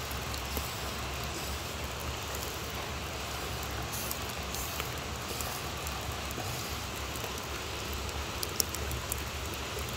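Steady rain falling on wet ground, with a couple of faint clicks near the end.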